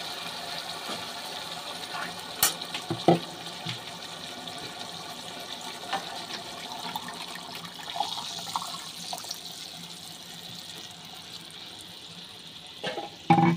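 Thin cooked dal poured from a steel pot into a hot kadai of tomato masala: a steady run of splashing liquid as the pan fills, with a few light clinks and a knock near the end.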